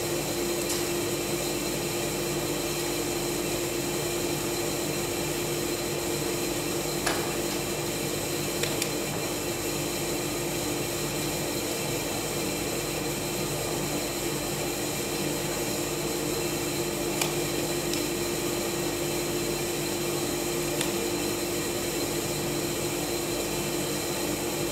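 Woodworking planer running steadily with a constant hum, with a few faint clicks of the board being handled.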